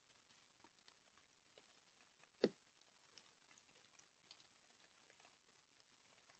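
Light rain pattering: scattered faint drop ticks, with one much louder single tap about two and a half seconds in.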